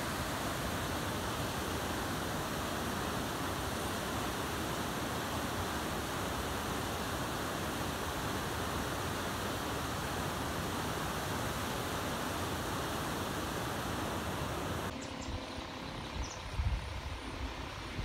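Flooded, muddy river rushing over rocky rapids: a loud, steady roar of water. It cuts off suddenly about fifteen seconds in, leaving quieter outdoor background with a few low thuds.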